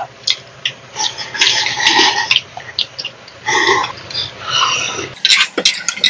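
A person slurping and eating ramen noodles, a few short wet slurps. Near the end, chopsticks click against the metal griddle pan.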